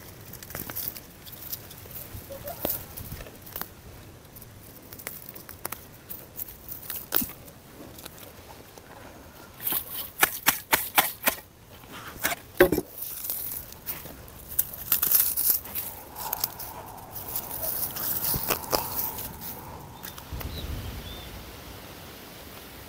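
Weed grass being pulled and hoed out of dry soil: a hoe scraping and striking the ground, with dry grass and roots crackling and tearing. The strikes come irregularly, in quicker runs from about ten seconds in.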